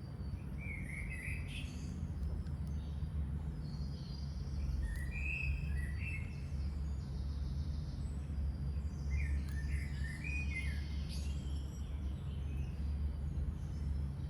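Small birds chirping in short bursts, about a second in, around five seconds in and again between nine and eleven seconds, over a steady low background rumble.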